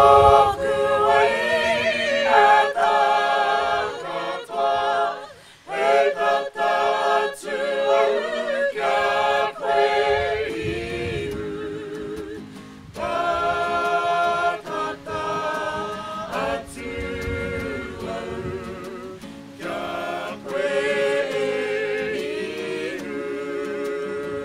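A small mixed choir of men and women singing unaccompanied, in phrases with short breaks between them.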